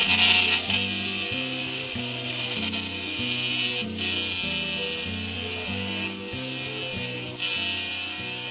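Background music with an even run of chord changes, over a steady high-pitched hiss that is loudest in the first second.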